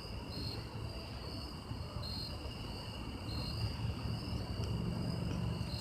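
Insects trilling steadily at a high, even pitch, with short louder chirps every second or so, over a low rumble.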